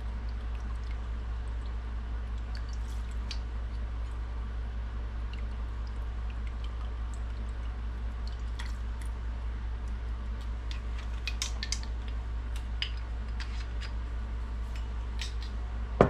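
A steady low hum under faint scattered ticks and small pops from a saucepan of butter-and-vinegar barbecue sauce heating on the burner, the pops growing more frequent in the second half, with a sharper click near the end.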